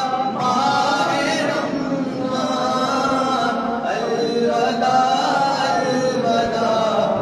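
Male voices chanting a devotional chant in repeating melodic phrases, each about two seconds long, with no break.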